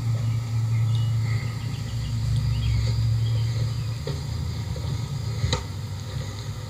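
2004 Goodman heat pump outdoor unit running in cooling mode, a steady low hum of compressor and condenser fan, heard through a computer's speakers as an old recording plays back. Faint insect chirping in the background, and a short click about five and a half seconds in.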